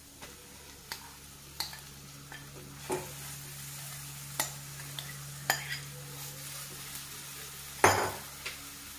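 A metal spoon clinks and scrapes against a glass bowl and a pan as mashed boiled potato is spooned into hot oil and spices, with a faint sizzle underneath. The clinks come about once a second, the loudest near the end, over a steady low hum.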